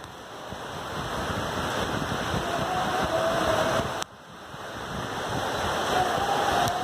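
Steady rushing noise of a thunderstorm, with rain and wind blending together. It swells gradually, drops off sharply about four seconds in, and builds up again.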